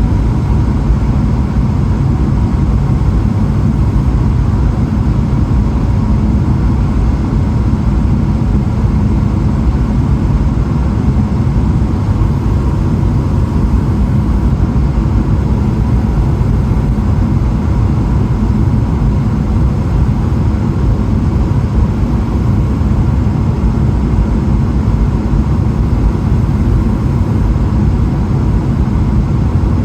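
Steady low roar of a Boeing 777-300ER's engines and airflow heard from inside the passenger cabin, with a faint steady tone running through it.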